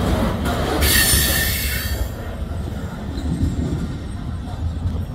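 Freight cars rolling past on the rails, with a squeal from the wheels in the first couple of seconds, then the rumble fading as the end of the train pulls away.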